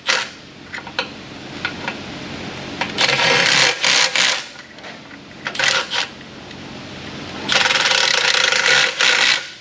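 Ratchet clicking rapidly in several spells, the longest near the end, as it runs down the perimeter bolts of a freshly sealed oil pan, with a few single metal clicks between.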